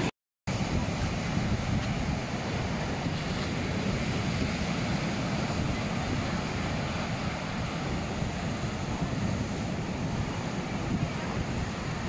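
Rough sea surf breaking and washing up a beach: a steady rush of waves, with wind buffeting the microphone. The sound cuts out briefly just after the start.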